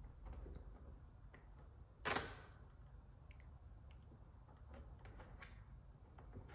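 Hands working adhesive tint film onto a car side mirror's plastic turn-signal lens: faint ticks and rubbing of fingers on film and plastic, with one sharp click about two seconds in, over a low room hum.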